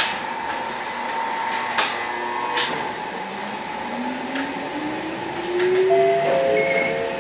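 Toyama Chiho Railway 14760-series electric train moving off, with a few sharp clicks early on. From about halfway through, a motor whine rises steadily in pitch as the train accelerates.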